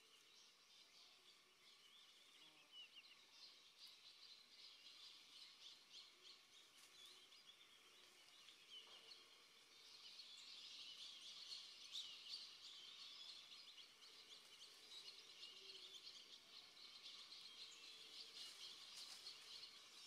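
Very faint outdoor ambience of dense, high chirping, a little louder from about halfway through.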